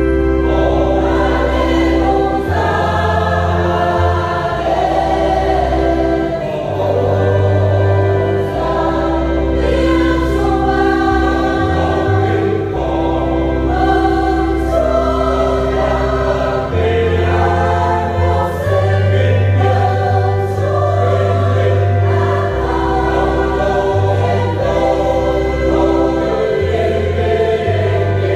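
Church choir singing a Vietnamese Easter hymn in harmony over sustained low bass notes.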